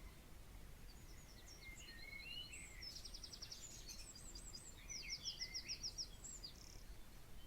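Several small birds singing faintly: scattered short whistles and chirps, with two quick high trills of rapidly repeated notes about three and five seconds in.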